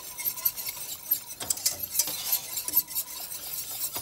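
Slotted metal spoon clinking and scraping against a stainless-steel pot and a porcelain plate as boiled potato dumplings are lifted out of their cooking water: scattered sharp clicks over a faint steady hiss.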